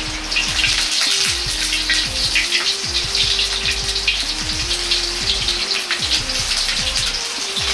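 Small pieces of pork back fat crackling and spattering steadily in a hot wok as they render into lard, with a light background music melody throughout.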